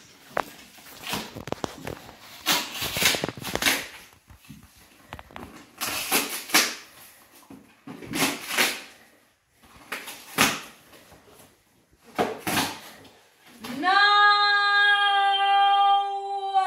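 Cardboard box and packing tape being torn and ripped open in repeated rough bursts. Near the end a woman lets out one long, loud, high squeal of delight.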